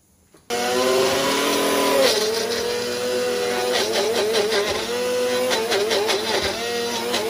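Electric mixer grinder switched on about half a second in, grinding garlic, ginger, red chili and coriander into a paste. The motor runs loudly with a whine that wavers up and down in pitch.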